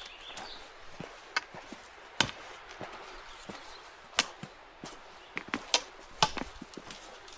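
Footsteps on a rocky trail: irregular sharp clicks and knocks of boots and gear striking stone, the loudest about two seconds in and again near six seconds.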